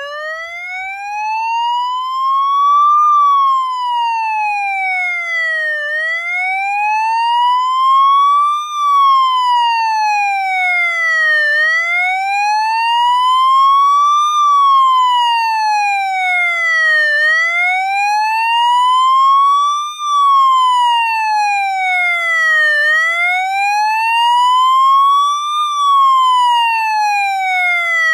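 Police siren wailing: one pitch climbs slowly and steadily, then falls back the same way, each rise and fall taking about six seconds, about five times over.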